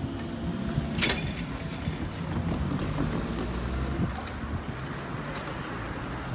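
Vehicle engines running with a low, steady rumble, with a sharp click about a second in.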